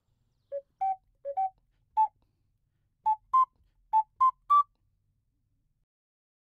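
A short tune of about ten brief, clean, whistle-like notes in quick pairs and groups, climbing in pitch toward the end before stopping.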